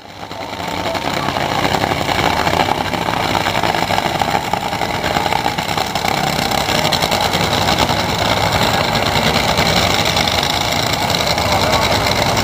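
Two drag-racing dragsters' engines idling loudly and steadily at the starting line, fading in over the first second or two.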